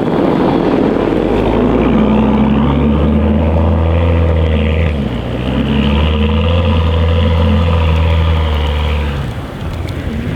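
BMW 335i's turbocharged inline-six engine held at steady revs under load while its rear wheels spin in snow on a driveway climb. The revs dip briefly about five seconds in, pick up again, then ease off near the end.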